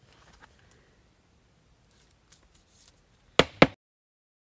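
Trading cards being handled and flipped through, with soft rustles and light ticks, then two sharp clicks in quick succession near the end, after which the sound cuts out completely.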